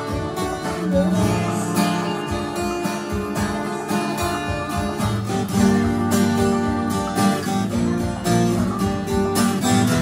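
Twelve-string Tagima acoustic guitar strummed in a steady run of chords, the notes ringing on between strokes.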